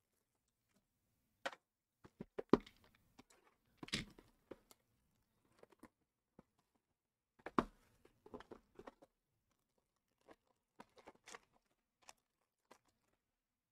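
Plastic shrink-wrap being torn and peeled off sealed trading-card boxes: scattered short crinkles and rips with quiet gaps between.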